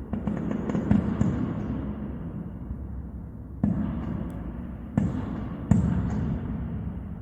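Aerial fireworks bursting overhead: a cluster of bangs and crackling in the first second or so, then three loud booms, about three and a half, five and nearly six seconds in, each rumbling away after the bang.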